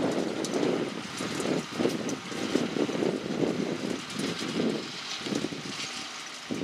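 New Holland tractor running steadily in the field as it pulls a Claas twin-rotor rake through mown grass.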